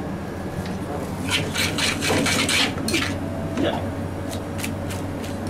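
Metal tongs scraping and clinking against a frying pan as carbonara egg sauce is kept moving so it does not scramble, busiest between about one and three seconds in. A steady low hum runs underneath.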